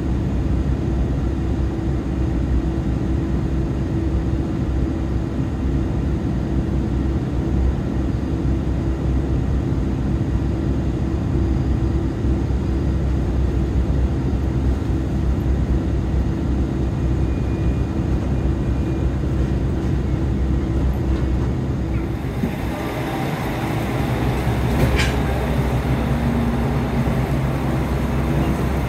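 On-board sound of a JR Shikoku limited express Uwakai diesel train, a steady low rumble with a constant hum. About 22 seconds in the sound changes, turning brighter and noisier, with a single click a few seconds later.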